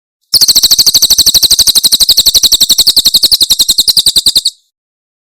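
Cililin bird giving its 'tembakan' burst song: a rapid, even rattle of high notes, about eleven a second. It starts abruptly and stops about four seconds later.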